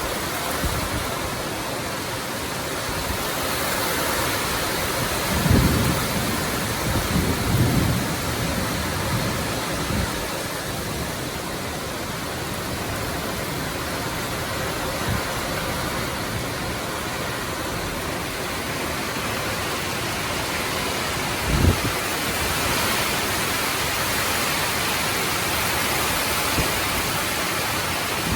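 Heavy rain pouring steadily in a rainstorm, an even dense hiss, with a few brief low thumps about six, eight and twenty-two seconds in.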